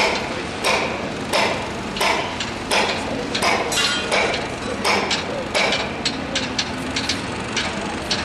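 Hammering on a construction site: sharp, ringing strikes at about one and a half a second, coming quicker and less evenly after about six seconds, over a steady low hum of site machinery.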